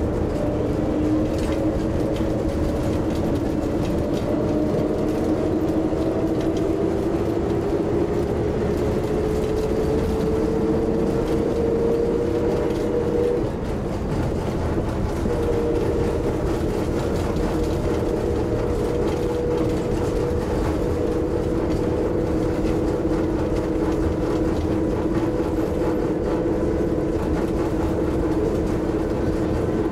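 Nanbu Jūkan Railway railbus heard from inside the cab as it runs: a steady rumble under a pitched engine and drive whine that climbs gradually as it gathers speed, breaks off with a brief dip in level about thirteen seconds in, then holds at a steady pitch.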